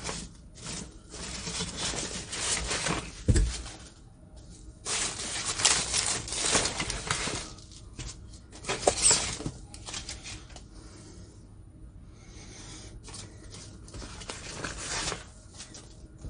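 Hands rummaging through a cardboard box of foam packing peanuts and packaged items: rustling and crinkling in several bursts, with a soft thump about three seconds in.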